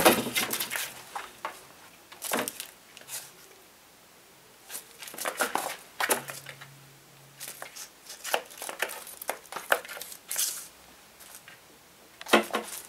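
Bursts of rustling and crinkling with a few light clatters, coming and going at irregular intervals, loudest right at the start.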